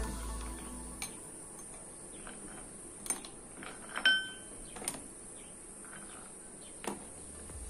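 Ice cubes clinking as they are lifted from a bowl and dropped into a tall beer glass: a few scattered clicks, the loudest about four seconds in with a brief glassy ring.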